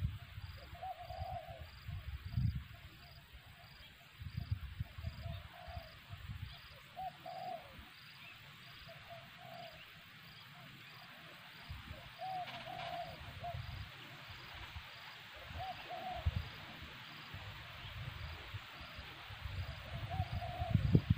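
Spotted dove cooing in short phrases every few seconds, over an intermittent low rumble.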